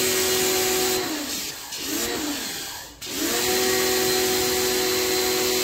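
DYLECT Ultra Flow Plus 1900 W electric pressure washer running, its motor whine mixed with the hiss of the water jet. The motor winds down about a second in, spins up briefly, cuts out at about three seconds, then starts straight back up and runs steadily.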